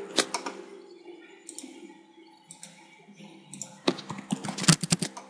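Computer keyboard keystrokes and mouse clicks: a few clicks at the start, then a quick run of clicks from about four seconds in to near the end, over a faint steady hum.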